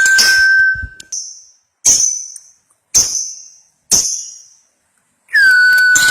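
Lovebird chattering in a dense, buzzy run that stops about a second in, followed by four single sharp high calls about a second apart, each ringing away; the chattering starts up again near the end.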